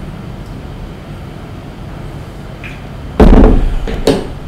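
Two heavy thumps about a second apart as a large plastic gallon water jug is shifted and set down on a wooden desk, over a low steady room hum.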